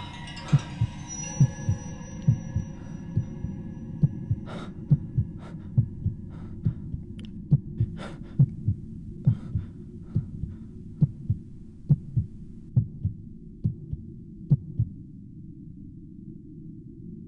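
Muffled heartbeat, low thumps in pairs a little faster than once a second over a steady low hum, with faint scattered ticks in the first half. The beats stop about fifteen seconds in, leaving the hum.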